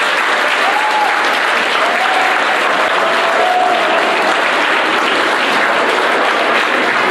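An audience of schoolchildren clapping in steady applause as a dance number ends.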